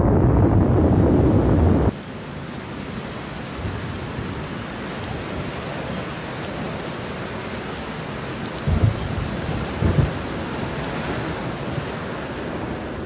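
Steady rain with thunder: a loud low rumble cuts off about two seconds in, then the rain hiss goes on alone with two short rolls of thunder near the end.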